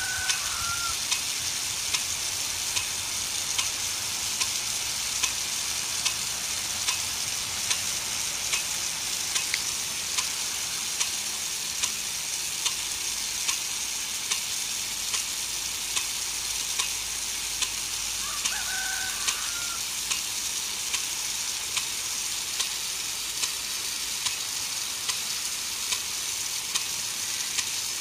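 Impact-type rain gun sprinkler running: a steady hiss of water spray with a regular sharp tick from its swinging arm, about one and a half ticks a second.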